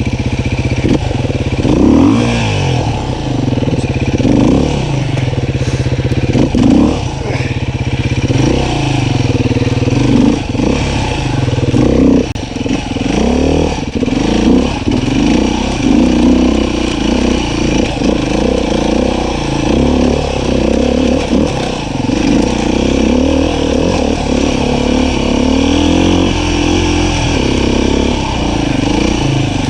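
Beta 500 RR-S four-stroke single-cylinder dirt bike engine pulling on a trail climb, its pitch rising and falling over and over as the throttle is worked.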